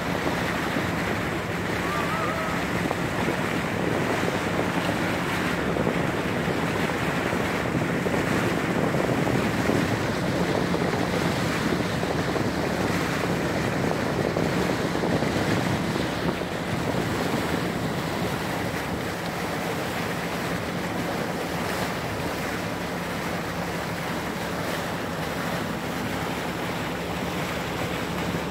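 Steady rush of wind on the microphone and sea water moving past a boat, with a low, steady hum underneath from the boat's engine.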